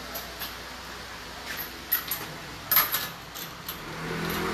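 Workshop sounds: a few sharp metallic clinks and knocks, the loudest near the end, then a steady machine hum that starts in the last half second.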